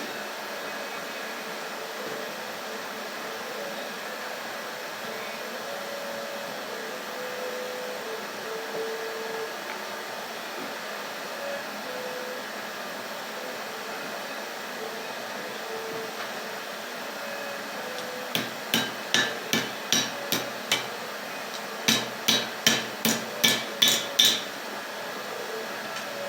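Steady rushing noise of a coal-fired forge, then two quick runs of hand-hammer blows on hot steel over an anvil, about three to four a second. The blows are forging a scroll (penny curl) on the end of a metal rod.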